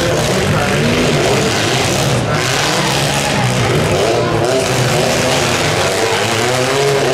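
Several demolition-derby compact cars' engines revving hard and unevenly together as the cars push and grind against one another in a pile.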